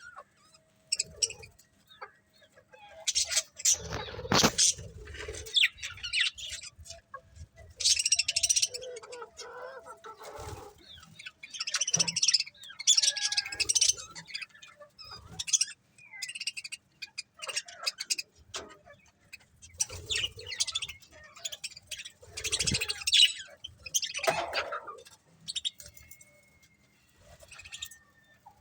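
Budgies and lovebirds chirping and chattering in repeated bursts, with short pauses between them.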